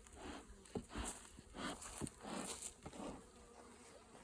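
Honeybees buzzing faintly around an open hive, swelling and fading, with a few light knocks from frames being handled about a second and two seconds in.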